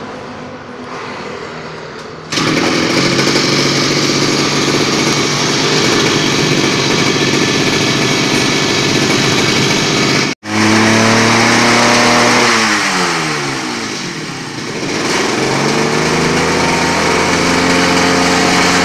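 Two-stroke brush cutter engine test-running on a new spark plug and plug wire. It runs low at first, is revved up about two seconds in and held at high revs; later the revs fall back toward idle and then climb again.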